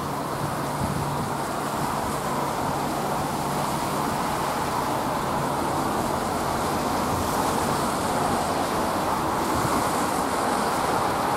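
Steady road traffic noise, with tyres hissing on a wet road, growing slightly louder toward the end.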